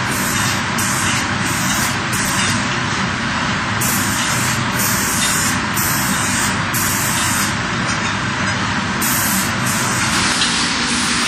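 Industrial painting robot spraying lacquer onto the edges of a stack of furniture boards, a steady spraying hiss.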